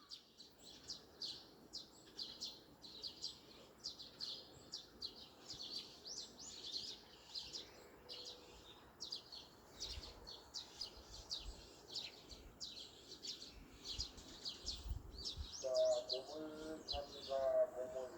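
Many small birds chirping rapidly and continuously in a countryside morning chorus. A louder voice-like sound with a clear pitch comes in near the end.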